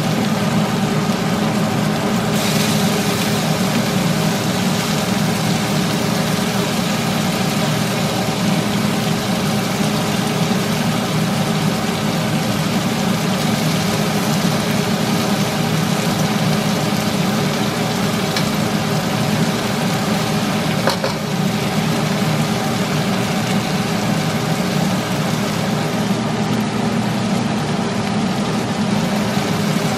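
A steady motor hum from a kitchen exhaust fan, with pork belly frying in a wok beneath it. There are two brief clicks, about two seconds in and again about twenty-one seconds in.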